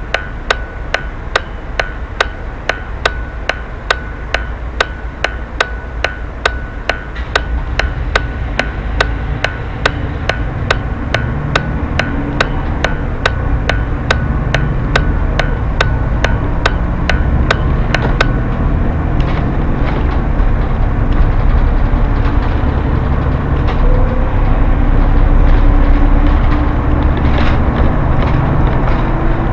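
A city bus's turn-signal relay ticking steadily over the low rumble of the bus engine. The engine pulls away and grows louder with road noise, and the ticking stops about two-thirds of the way through as the turn is completed.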